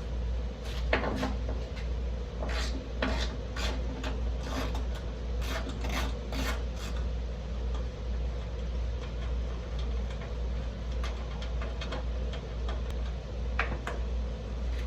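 Hand tools working on metal: a run of short clicks and scraping strokes, typical of a socket ratchet loosening bolts, bunched in the first half, with a few more clicks later, over a steady low hum.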